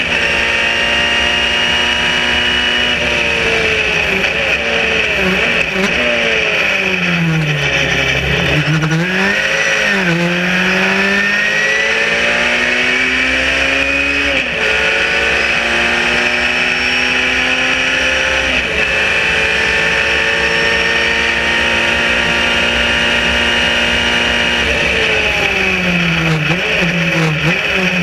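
Onboard sound of a Sbarro Spyder racing car's engine at racing speed. It holds high revs on the straight, then drops through the gears under braking with short throttle blips between shifts. It then pulls up through the gears with two clear upshifts, and brakes and downshifts with blips again near the end.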